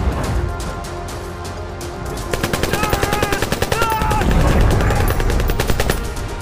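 Rapid full-automatic fire from an AK-pattern assault rifle, starting about two seconds in and running for several seconds, over dramatic film music. A shrill, wavering cry rises above the shots about midway.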